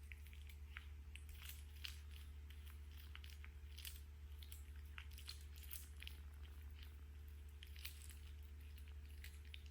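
A cat chewing on a caught bird: faint, irregular crunching and small clicks over a steady low hum.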